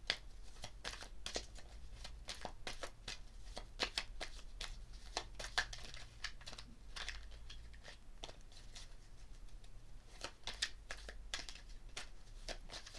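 Tarot cards being shuffled and handled: a run of short, irregular papery snaps and flicks that thins out in the middle and picks up again near the end.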